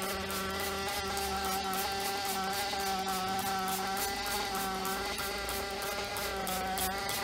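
Maxy's Cinco 2.0 nitro engine running steadily through its break-in, a high buzzing drone whose pitch wavers slightly. A trigger spray bottle hisses in quick repeated squirts over it.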